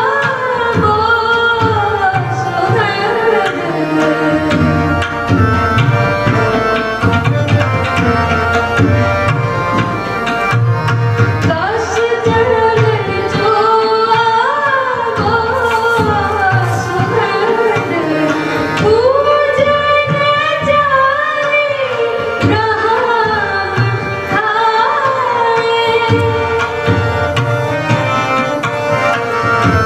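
Gurbani kirtan: women singing a shabad to harmonium accompaniment, with a tabla keeping a steady rhythm underneath.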